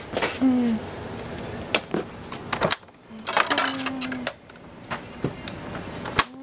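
Scattered sharp clicks and knocks of objects being handled in a small room, with a couple of brief low voice sounds between them.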